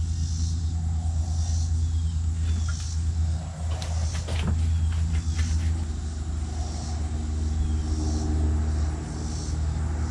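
A steady low mechanical hum, with a few light knocks and clicks about four seconds in. A faint high chirp repeats about once a second.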